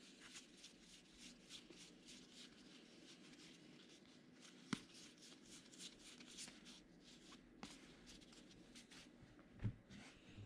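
Faint rustling and flicking of 2020 Gypsy Queen baseball cards being slid through the hands one after another, with a few sharper clicks and a soft knock near the end.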